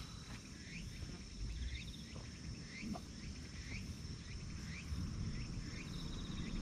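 Field insects chirring in a steady high trill, with a short rising chirp repeated about twice a second, over a low rumble and a couple of faint knocks.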